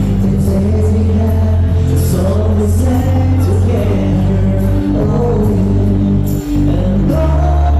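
Music: a song with singing over held bass notes.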